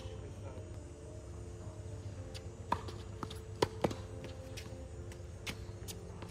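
Tennis ball struck by rackets and bouncing on a hard court during a short rally: a string of sharp pops starting about two seconds in, the loudest between about two and a half and four seconds in, over a steady low hum.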